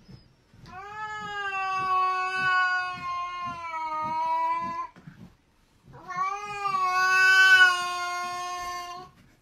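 A cat yowling: two long, drawn-out calls, each holding a fairly steady pitch that sags a little before it cuts off.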